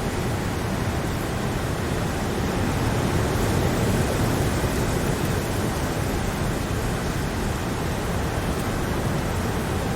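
Steady, heavy rain: a dense, even hiss with a low rumble under it and no single drops or thunder standing out.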